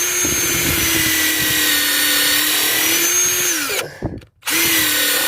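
Bauer 20-volt Hypermax impact driver running with a steady motor whine over the rapid rattle of its impact hammering. It runs for nearly four seconds, stops briefly, then starts again.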